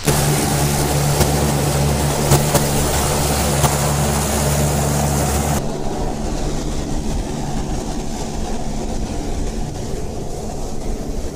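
Steady drone of a running engine with a rushing hiss over it. About halfway through, the sound changes abruptly: the hiss drops away and a lower, steady engine tone carries on.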